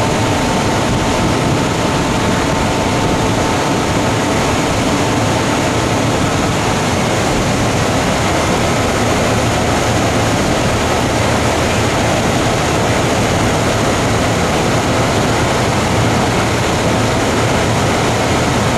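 Fire truck's diesel engine running steadily at a constant speed, a loud, unchanging drone.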